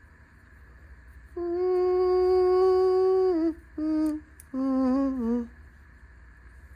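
A person humming a short tune: one long held note that dips at its end, then a brief lower note and a wavering, falling final note.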